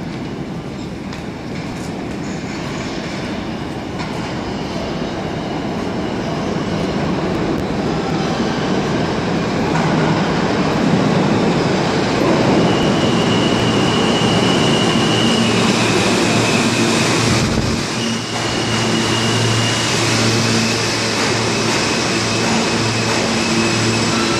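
R160 subway train approaching through the tunnel and pulling into the station. Its rumble grows louder over the first ten seconds or so. A high squeal comes in two stretches as it slows, over a steady low hum as it draws to a stop.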